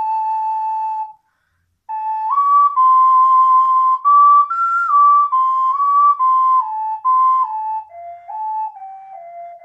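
Pachamama alto C ocarina playing a slow melody. A held note breaks off about a second in, and after a short pause a phrase of stepping notes climbs to its highest, loudest note near the middle. It then falls back and settles on a long low held note.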